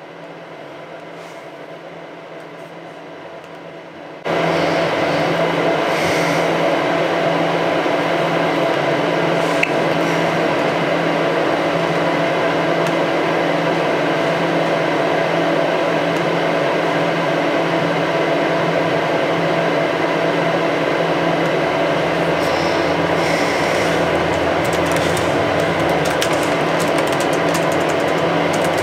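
A steady machine-like hum made of several held tones. It is low for about the first four seconds, then cuts in suddenly much louder and stays level.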